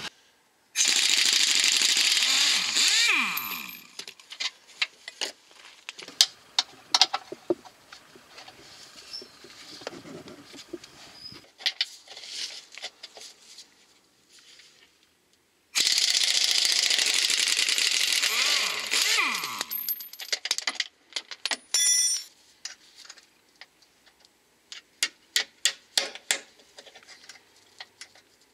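Impact wrench hammering to undo the lower control arm's subframe mounting bolts, in two long bursts about fifteen seconds apart, each ending with a falling whine as the wrench winds down. Between and after the bursts come sharp metal clicks and knocks from the tools on the bolts, with a quick run of clicks near the end.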